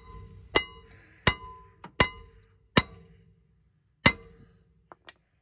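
A hammer striking the back of a Jeep Grand Cherokee's rear brake rotor, which is rusted onto the hub. There are six blows over about four seconds, one of them lighter, and each leaves the cast-iron rotor ringing briefly. Two faint ticks come near the end.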